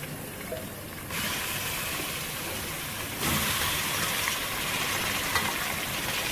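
Raw beef chunks sizzling as they go into hot oil and browned onions in a pot. The sizzle starts about a second in and gets louder about two seconds later as more meat goes in.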